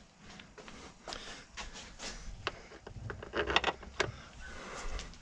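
Light handling noises from a gloved hand working around a car battery in an engine bay: a string of small, scattered clicks and light knocks with faint rustling, a few of them a little louder about three and a half to four seconds in.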